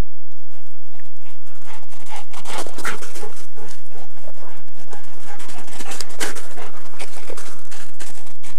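Dog panting close by, with irregular crunching steps in snow.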